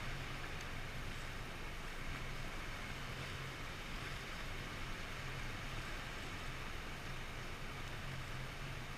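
Small outboard motor of an inflatable boat running at low speed, a steady low hum, under an even hiss of water and air.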